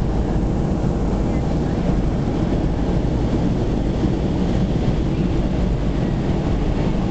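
Steady cabin noise inside a Boeing 737-300 on descent: a constant low rumble of its CFM56-3 turbofan engines and the airflow over the fuselage, with no change in pitch or level.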